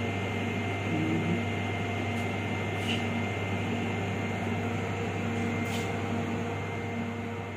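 Steady low hum with a thin high whine over it, the background drone of a live electrical switchgear room.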